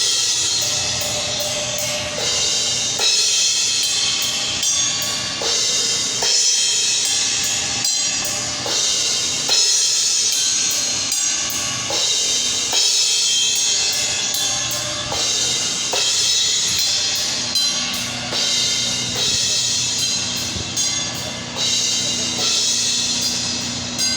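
Live band sound check: a drum kit playing with cymbals and bass drum, among other instruments.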